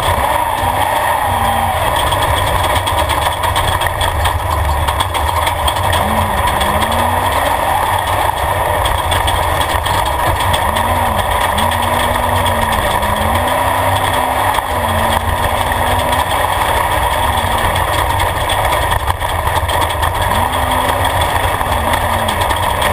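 Off-road race vehicle's engine running hard inside the roll-caged cockpit, its pitch rising and falling again and again as the throttle is worked over a dirt track, over a steady low rumble of the vehicle running across rough ground.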